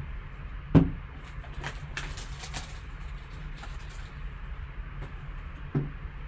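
Handling noise from a shrink-wrapped cardboard trading-card box being lifted and turned over on a tabletop: a sharp knock about a second in, then a run of light rustles and taps, and another small knock near the end, over a steady low hum.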